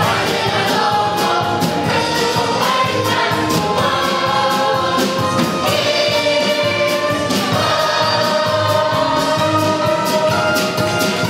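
A large choir of children and adults singing a song with instrumental accompaniment and a steady beat, holding some long notes.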